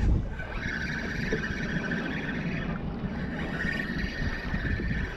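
Fishing reel whining steadily with a few short breaks while a hooked Spanish mackerel is fought, over a low rumble of wind on the microphone.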